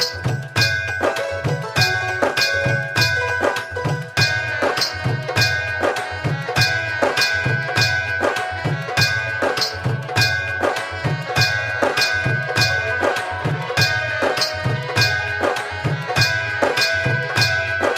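Instrumental Indian folk-style music with a steady tabla and drum beat under a sustained high melodic tone; no singing.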